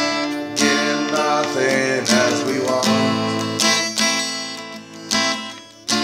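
Song music from a band's demo: acoustic guitar chords strummed and left ringing, a fresh strum about every second and a half.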